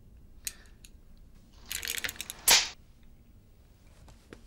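A revolver being readied for Russian roulette: a light click, then a quick run of metallic clicks as the cylinder is spun, and a single loud, sharp metallic clack about two and a half seconds in.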